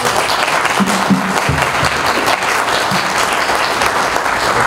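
Audience applauding steadily at the close of a lecture.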